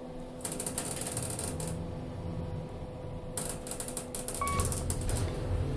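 Rapid clicking of elevator buttons being pressed over and over, in two runs, with a short electronic beep about four and a half seconds in.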